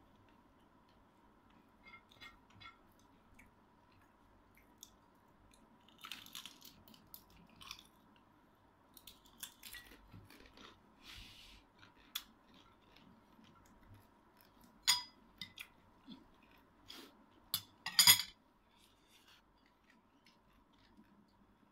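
Sparse clicks, crunches and light clinks of someone eating dried fish with bare hands from a ceramic plate: fingers picking and tapping on the plate between bites and chewing. The loudest clicks come in two short clusters, about two-thirds of the way through and again near the end.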